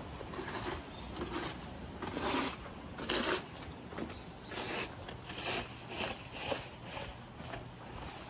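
Footsteps walking along a wet street with patches of snow, short scuffing steps at about two a second, a couple of them louder than the rest.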